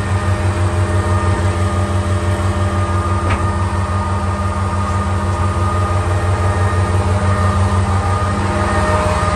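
Komatsu HD405-7 dump truck's six-cylinder diesel engine idling steadily.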